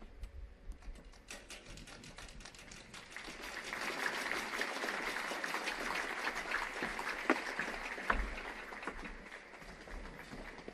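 Audience applause: many hands clapping, swelling about three and a half seconds in and then slowly thinning out.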